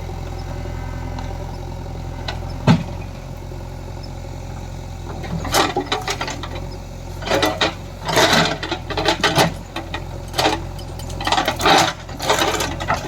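JCB 3DX backhoe loader's diesel engine running steadily. There is a sharp knock early on, then from about halfway a run of irregular clanks and scrapes as the machine works.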